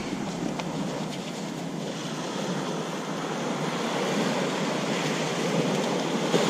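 Small ocean waves breaking and washing up a sandy beach: a steady surf hiss that grows a little louder toward the end.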